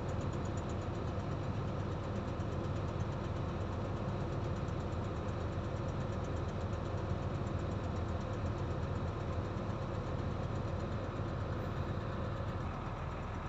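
Heavy diesel engine running steadily at a constant, low drone.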